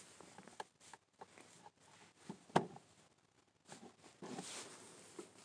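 Handling noise from a handheld phone: scattered light clicks and fabric rubbing against the microphone, with one sharper click about two and a half seconds in and a soft rustle near the end.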